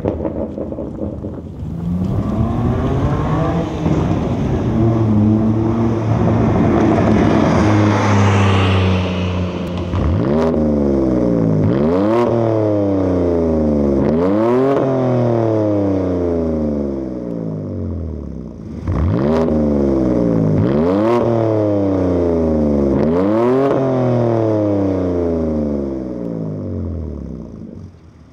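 BMW M4 (G82) S58 twin-turbo inline-six through a resonator-deleted aftermarket exhaust. It first drives past under acceleration, its note climbing. Then it is free-revved from standstill six times, each rev rising sharply and falling back: three with the exhaust valves closed in Sport, three more with the valves open.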